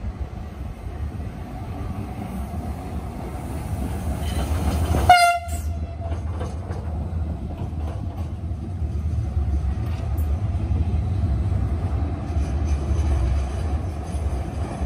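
FGV S-5000 tram running past on street track, its wheels and running gear giving a steady low rumble. About five seconds in, the driver sounds the horn in a short blast that swells and then cuts off abruptly.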